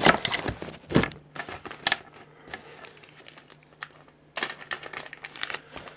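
A padded mailing envelope being crinkled and torn open by hand: irregular rustles and rips, with a quieter pause in the middle.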